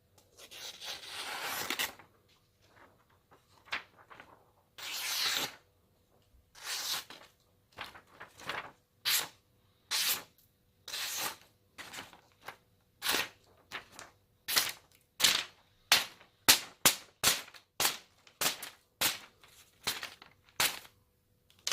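A freshly sharpened knife blade slicing through a sheet of paper, over and over: short hissing cuts, one longer cut near the start, then sparse cuts that quicken to about two a second in the second half. This is a paper test of the edge's sharpness.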